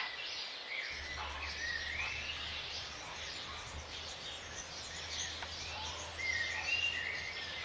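Wild birds chirping and calling, short rising and falling calls over a light background hiss, with a faint steady low hum setting in about a second in.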